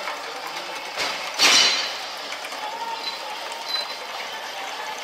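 Roller-chain and sprocket drives of a log-sorting conveyor running, with a steady mechanical rattle and clatter. A loud, sharp clank comes about a second and a half in.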